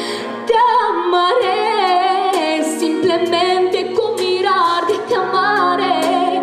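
A boy's unbroken solo voice singing into a microphone with a wide vibrato, over an instrumental accompaniment; the voice comes in about half a second in and holds long notes.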